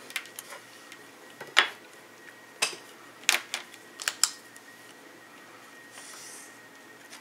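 Scattered light clicks and knocks of a metal speed square being slid and set down on paper over a wooden table and of pens being put down and picked up. About six seconds in comes the soft scratch of a Sharpie marker drawn along the square's edge on paper.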